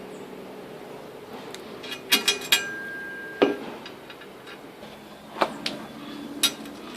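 Sharp metallic clicks and clinks of small metal hardware being handled: a quick run of about four about two seconds in, then single clicks spread out after it, over a faint steady hum.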